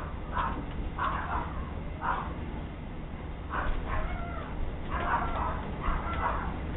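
An animal's repeated short cries, coming irregularly about every half second, heard through a doorbell camera's thin, narrow-band audio.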